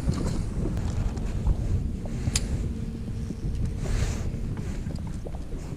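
Wind buffeting the microphone on a fishing boat as a low rumble, under a faint steady hum and a few light clicks.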